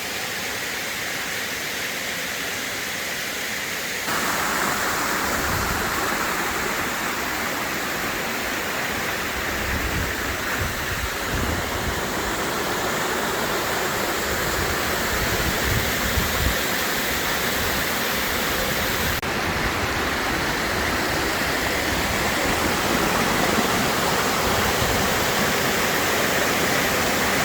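Waterfall's water falling and splashing in a steady rush, which turns louder and brighter about four seconds in.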